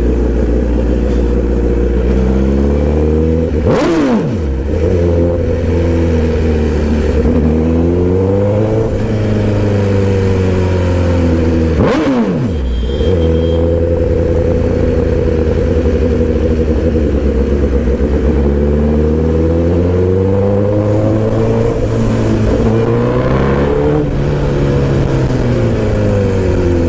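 Honda CBR1000RR Fireblade's inline-four engine under way, its pitch climbing and falling several times as the throttle is opened and eased, with two sudden drops in engine pitch about four and twelve seconds in.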